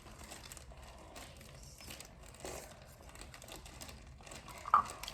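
Faint crinkling and rustling handling noises, with one short, sharper sound near the end.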